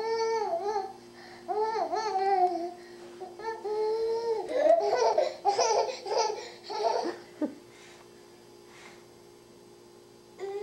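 Toddler babbling in high, sing-song calls with a pacifier in her mouth, then laughing in a run of short choppy bursts about halfway through before falling quiet.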